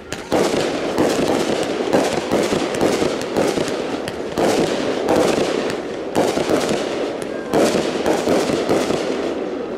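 Consumer aerial fireworks going off in quick succession: a dense run of bangs and crackling that starts about a third of a second in, surges louder roughly every second and eases off near the end.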